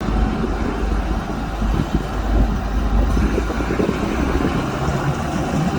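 Combine harvester running steadily, a continuous low machine rumble.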